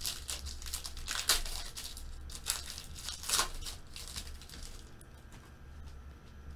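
Foil wrapper of a football-card pack crinkling and tearing as it is ripped open by hand: a run of sharp crinkles, loudest about a second in and again about three and a half seconds in, dying away after about five seconds.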